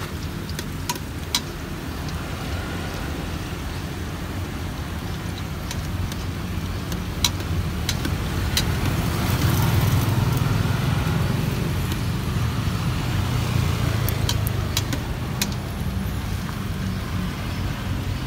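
Long metal tongs clicking sharply against a metal frying pot as skewered cilok fry in oil, a dozen or so taps scattered through. Under them a steady low traffic rumble that swells in the middle as a vehicle passes, then eases.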